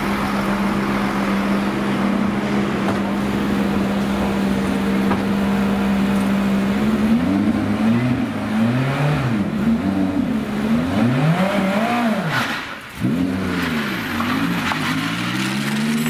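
A race car engine holds one steady note at pit-lane speed for about the first seven seconds. Then a Ferrari 458 GT3's V8 is blipped again and again, the revs rising and falling several times. Near the end the revs climb steadily as it pulls away.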